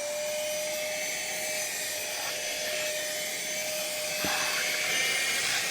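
Cordless handheld vacuum cleaner running at full speed: a steady high motor whine over the rush of air being sucked through the nozzle.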